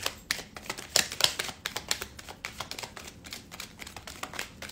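A deck of cards being shuffled by hand: a quick, irregular run of light card clicks, busiest about a second in.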